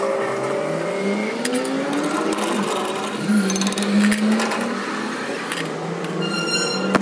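Electric motor of a workshop machine running on a welded truck differential pinion gear, its pitch climbing over the first couple of seconds as it spins up and then holding a steady hum, with a few light metallic knocks.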